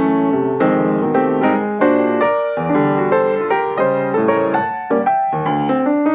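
Background piano music, notes struck in a steady flowing rhythm.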